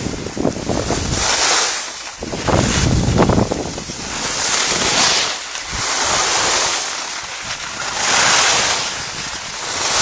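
Skis hissing over packed snow in a run of turns, the hiss swelling and fading about every two seconds, with wind buffeting the microphone.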